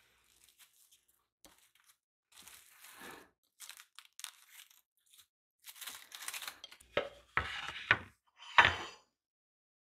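Plastic cling film crinkling and rustling as it is stretched and pressed over a glass bowl, followed by a few louder, sharper crackles and knocks near the end.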